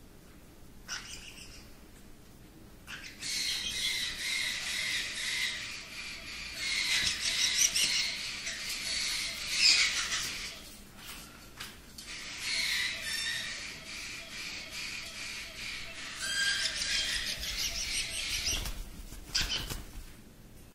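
Baby lime-thighed caiques chattering and calling in repeated high calls. The calling starts about three seconds in, breaks briefly around eleven seconds, then goes on again and stops shortly before the end.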